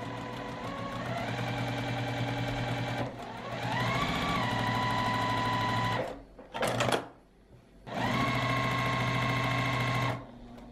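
Juki sewing machine stitching a straight seam along a folded fabric edge, its motor whine rising as it speeds up. It stops about six seconds in, gives one short burst, then runs again and stops near the end.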